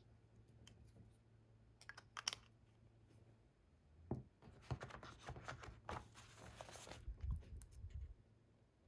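Faint handling noise: a few light clicks as a fountain pen is handled, then a run of paper rustling and scraping, with small knocks, as a notebook of thin Tomoe River paper is moved and held.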